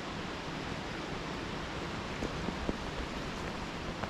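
Steady rushing of a big river running high and fast after heavy rain, with a few faint knocks around the middle.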